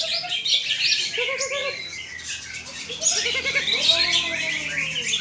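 Many caged songbirds singing at once: dense overlapping chirps, trills and whistled phrases.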